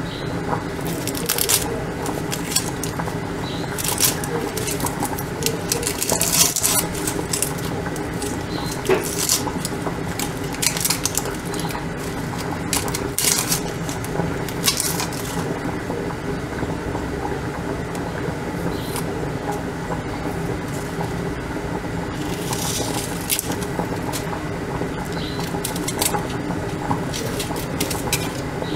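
Dry onion skin crackling and a plastic bag rustling as an onion is peeled by hand. The crackles come irregularly, every few seconds, over a steady machine-like hum.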